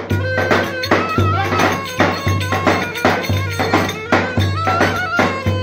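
Turkish folk wedding music from a band: a wavering, ornamented melody over steady percussion, with a deep thud about once a second.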